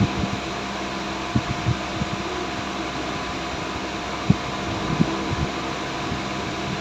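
Steady mechanical whir, with a few short, soft knocks scattered through it as parts are handled.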